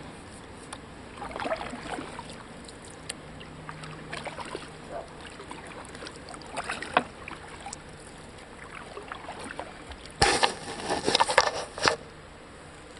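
Kayak paddling on a lake: the paddle dipping and water splashing and dripping at irregular intervals, with a louder flurry of splashing about ten seconds in.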